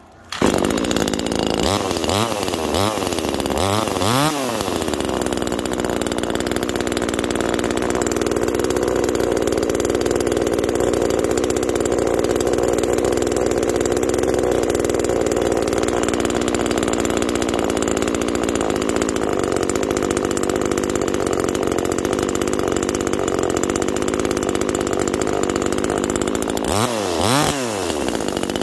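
Neotec 2500 25cc two-stroke top-handle chainsaw running, its carburettor not yet tuned: revved up and back down several times in the first few seconds, then idling steadily, with one more rev near the end.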